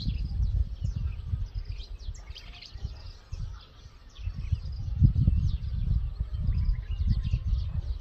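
Many small birds chirping and twittering in quick, high notes over a louder, uneven low rumble of wind on the microphone.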